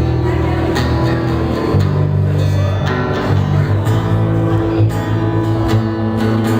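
Live acoustic band playing with no vocals: strummed acoustic guitar over sustained bass notes, with regular percussive strokes from the cajón.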